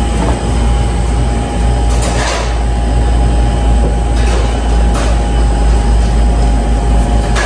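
Steady low rumble and hum of in-store refrigeration or ventilation machinery, with a faint steady whine above it. A few brief rustles come through about two, four and five seconds in.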